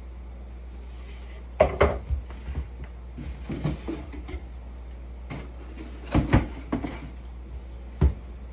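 Knocks and clatter of hard step-stool platform parts being handled and set down on a wooden floor during assembly, in three short bursts and then one single knock near the end, over a steady low hum.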